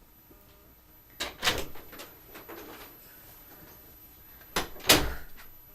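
Knocks and bangs of a door, drawer or cupboard being handled, in two sharp bursts about three seconds apart, the second the loudest.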